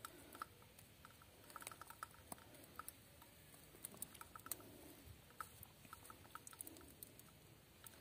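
Faint, scattered light clicks and rustles of scissors being worked at a tomato stem among the leaves, irregular and in small clusters.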